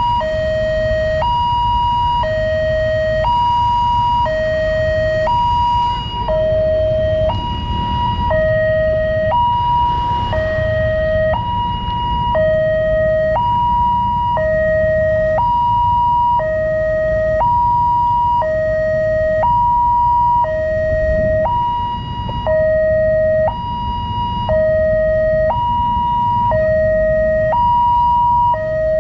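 Indonesian railway level-crossing warning alarm sounding: an electronic two-tone signal that switches between a lower and a higher steady tone about once a second, warning that a train is approaching. Road traffic rumbles underneath.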